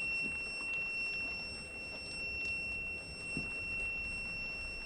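Electrical continuity tester giving one steady high-pitched beep without a break while its probes are clamped across a wire of the jigsaw's power cable and the cable is flexed. The unbroken tone means the wire is still conducting. A few faint handling knocks sound underneath.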